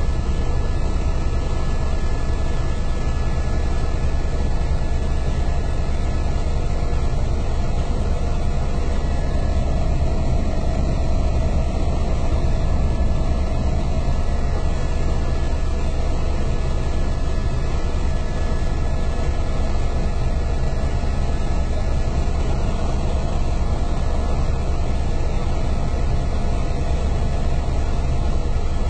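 Helicopter engine and rotor noise heard inside the cabin in level flight: a loud, unchanging low drone with a faint steady hum above it.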